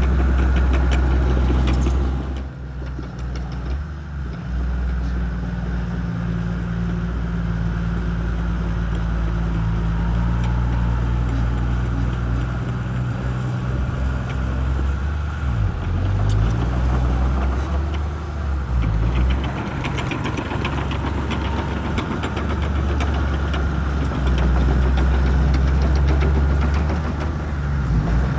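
Shantui bulldozer's diesel engine running steadily while working, its pitch dipping and recovering a few times partway through as the load changes.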